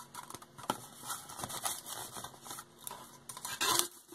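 Folded paper slips rustling against a thin plastic cup as one is drawn out and unfolded: scattered small crinkles and clicks, with a louder crinkle near the end.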